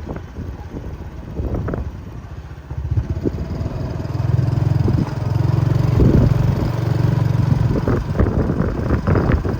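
Diesel locomotive engine running, swelling louder about three seconds in, with intermittent clattering knocks and wind on the microphone.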